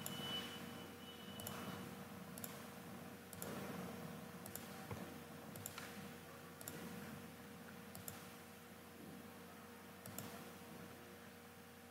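Computer mouse clicking: single, faint clicks spaced irregularly about a second apart, over a faint steady hum.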